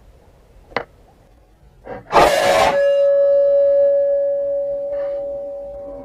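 Air rifle shot: a small click, then about two seconds in a sharp blast followed by a long ringing tone that fades slowly.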